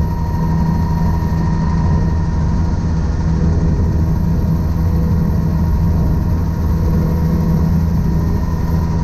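Helicopter in flight: steady, loud drone of engine and rotor, a deep rumble with a thin steady whine over it, holding level without change in pitch.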